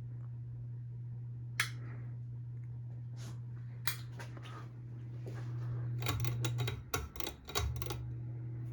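Hampton Bay Carousel 52-inch ceiling fan (CEI) running with a steady low motor hum. Sharp single clicks twice, then a burst of quick clicks and knocks about six seconds in.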